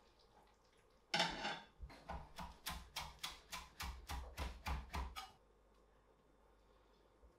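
Chef's knife chopping parsley on a wooden cutting board: a rapid, even run of sharp chops, about four a second, that stops about five seconds in.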